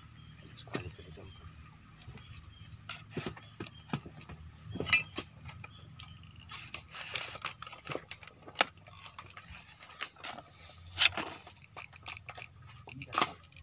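Hand work on a PC200 excavator boom-cylinder piston and its new seal, with plastic raffia string being wound round and pulled tight to ease the seal into its groove. Scattered small clicks, rustles and scrapes, with a sharper metallic clink about five seconds in.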